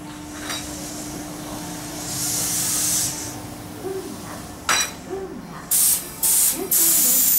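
Tobu 8000-series commuter train standing at the platform, venting compressed air: a hiss about two seconds in, a sharp click, then three loud, abruptly cut blasts of air near the end, all over a steady low hum.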